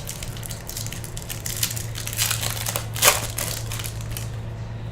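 Crinkling and rustling of a foil trading-card pack wrapper being handled, in a run of irregular strokes that is loudest about three seconds in and eases off after about four seconds. A steady low hum runs underneath.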